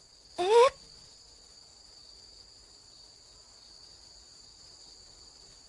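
Crickets chirping in a steady high trill as night ambience. Near the start, a girl gives one short, surprised, rising "eh?".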